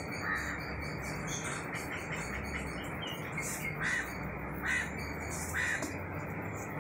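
A bird calling a few times in short calls over a steady background hiss.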